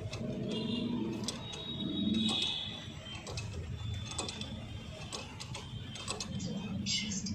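Metal hand tools clicking and clinking on motorcycle engine parts, with ratchet-like clicking, in irregular strokes over a low workshop background.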